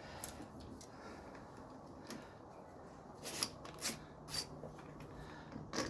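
A few faint, scattered clicks and knocks of hand tools and bolts being handled during engine mount removal, over a low steady background.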